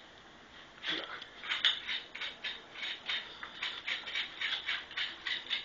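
Quick, irregular metallic clicks and scrapes, several a second, from hands working on the metal parts of a rotator mounting stand. They start about a second in.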